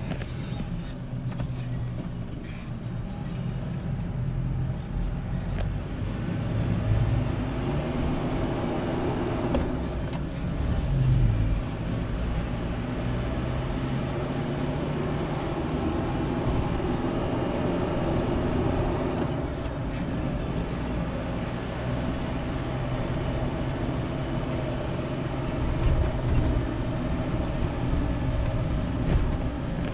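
Kia Bongo 3 light truck driving along the road: steady diesel engine and road noise, the engine note shifting in pitch a few times.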